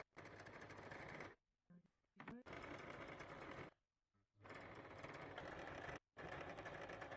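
Domestic sewing machine stitching in four short runs, each a second or so long, stopping briefly between them.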